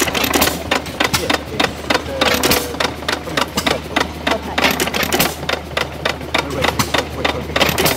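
Vintage stationary engines running together, a rapid, irregular clatter of firing and valve knocks over a steady low hum.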